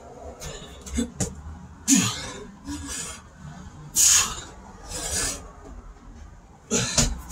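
Heavy, forceful breaths blown out hard by a man mid-way through a burpee and push-up set, four loud exhales a second or two apart, the first with a short grunt. A couple of light knocks come about a second in, as hands and feet go down onto the concrete floor.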